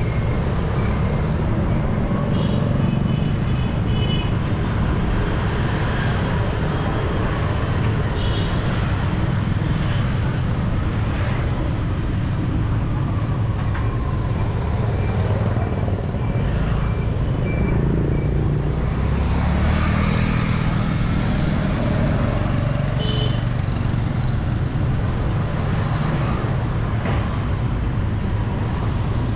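Busy city street traffic: vehicle engines running past amid a steady road rumble, with one engine rising out of the mix about two-thirds of the way through.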